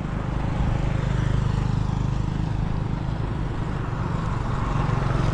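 The engine of the vehicle carrying the camera runs steadily, with wind and tyre noise as it travels along a wet road.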